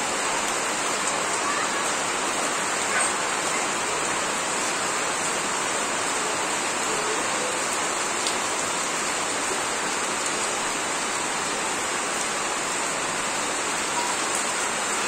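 Monsoon rain falling steadily on garden plants and a tiled yard.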